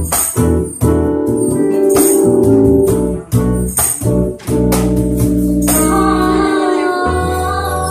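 Live band music: a woman singing over bass guitar, acoustic guitar and keyboard, with sharp percussion accents that stop about six seconds in, leaving held chords ringing.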